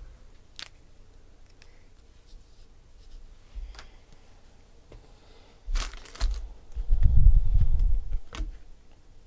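Hands handling trading cards and foil pack wrappers on a table: a few light clicks, then about six seconds in a rustle followed by a louder low rumble of handling lasting over a second.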